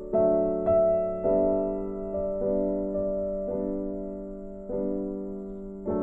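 Slow background piano music: soft chords struck roughly once a second and left to fade.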